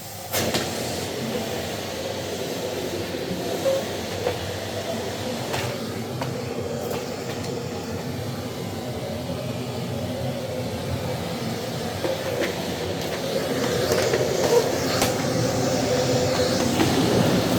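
Miele CX1 Blizzard bagless vacuum cleaner running steadily while its floorhead is pushed over carpet, with a few light knocks, getting louder over the last few seconds.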